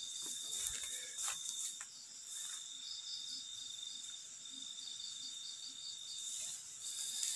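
Night insects, crickets among them, chirring steadily: one unbroken high tone with a pulsing trill above it. A few faint clicks and rustles come through in the first half.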